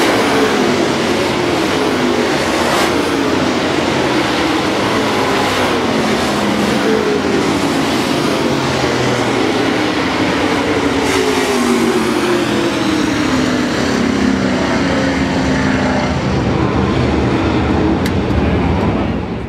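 Super late model dirt race cars' V8 engines running at speed around the track, their engine notes falling in pitch again and again as cars go by.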